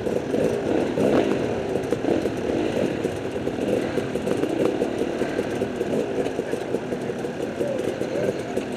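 Several enduro motorcycle engines running together, idling and blipping the throttle, their pitches overlapping and rising and falling.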